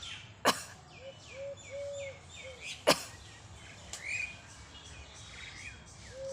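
Birds chirping in a quick series of short calls, with two brief sharp sounds about half a second in and about three seconds in.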